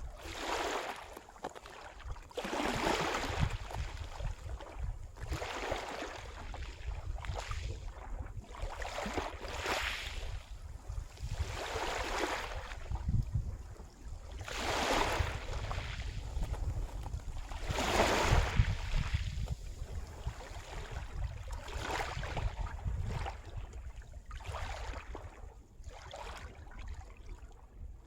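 Sea waves washing ashore, the wash swelling and easing every two to four seconds, with a steady low rumble that sounds like wind on the microphone.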